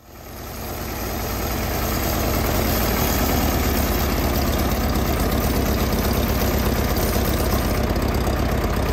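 Farmall F-20 tractor's four-cylinder engine running steadily, with a rapid even beat. It fades up over the first couple of seconds, then holds steady.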